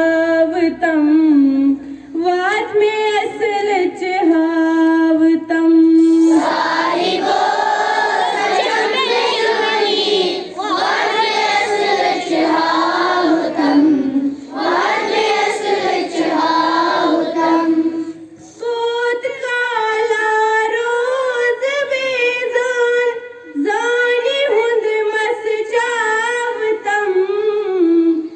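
Children's voices singing a prayer together at a school assembly, the singing sounding fuller, as with more voices, from about six seconds in until about eighteen seconds.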